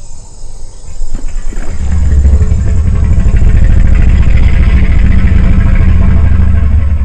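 Spinosaurus sound effect: a loud, deep, engine-like rumbling growl that dips briefly near the start, then builds and holds steady.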